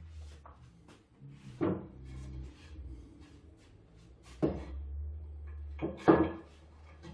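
Wooden knocks and thuds as pieces of timber are handled and set down, with three louder knocks spaced a couple of seconds apart.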